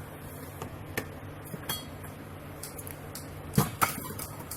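Scattered light clicks and knocks of refrigerator parts being handled, with a short rattle near the middle and two sharper knocks a little past three and a half seconds in, over a low steady hum.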